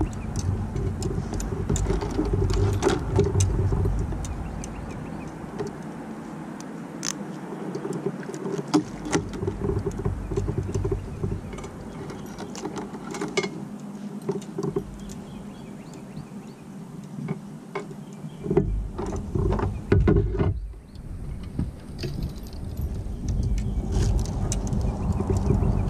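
Wind buffeting the microphone in a low rumble that comes and goes, with scattered clicks and light rattles of fishing tackle being handled.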